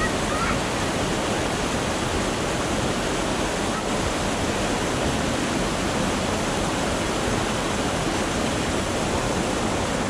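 Small cascading waterfall rushing steadily, an even unbroken roar of falling water.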